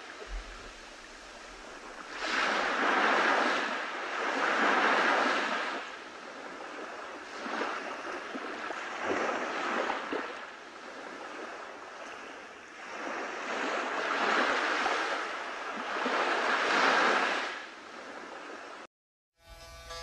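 Rushing water, swelling and fading in surges every few seconds, then cutting off abruptly near the end.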